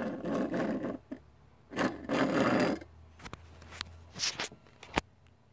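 Hands turning a small die-cast model airliner over close to the microphone. There are two scraping, rubbing bursts of about a second each, then a few light clicks and taps.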